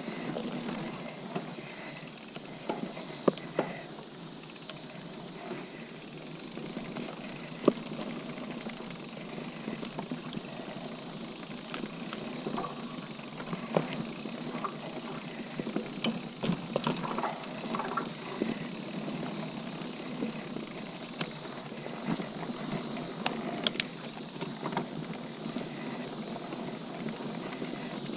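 Liv Hail mountain bike rolling along a dirt singletrack: steady tyre noise on the dirt with frequent sharp clicks, knocks and rattles from the bike over bumps.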